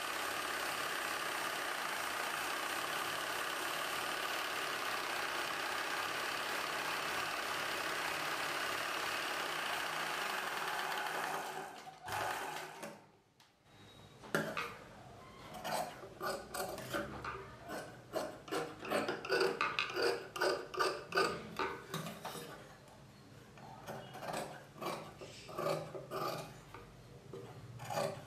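Ralson sewing machine running steadily as it stitches a seam, stopping after about twelve seconds; then cloth rustling and small clicks as the stitched piece is moved and handled.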